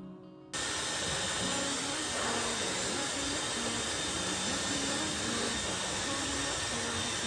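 A household appliance motor, switched on about half a second in, running with a loud, steady rushing noise.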